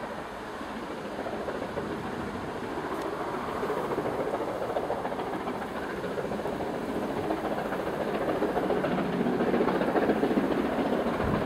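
BR Standard Class 7 'Britannia' two-cylinder Pacific steam locomotive working hard as it approaches with a train, its exhaust and running noise growing steadily louder.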